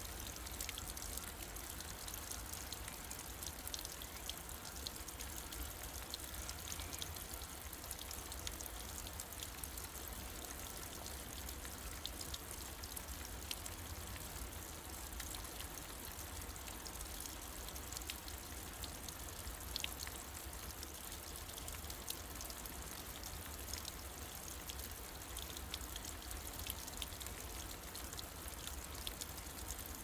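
Thin streams of water trickling down a mossy rock face, a steady splashing with many small drips and patters, over a steady low rumble.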